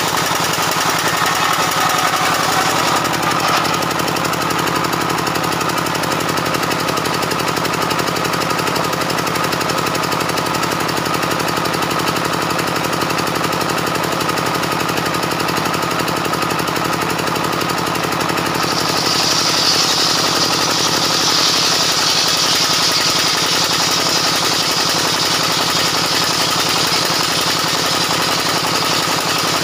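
Homemade belt-driven bench circular saw with a 24-inch blade running steadily with a rapid pulsing drone. About two-thirds of the way through, a higher whine comes in and holds as the blade rips along a timber beam.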